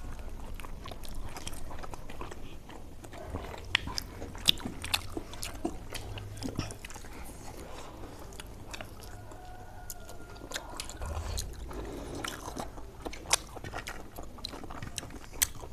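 Someone chewing and biting food close to the microphone, with many irregular sharp clicks and crunches.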